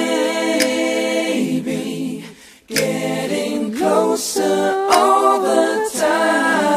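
A cappella singing: several voices in close harmony with no instruments, breaking off briefly about two and a half seconds in before picking up again.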